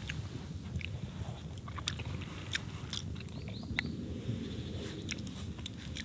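Close chewing and mouth sounds of a person eating soft rice pudding from a spoon: quiet chewing with scattered small clicks and smacks.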